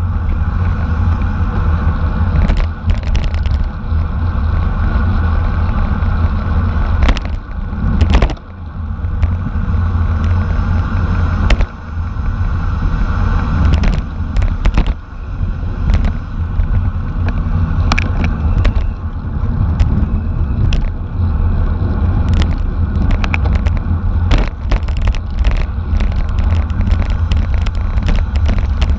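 Wind buffeting the microphone of a camera on a racing bicycle at speed, a heavy steady rumble, with frequent sharp clicks and rattles from the bike and road.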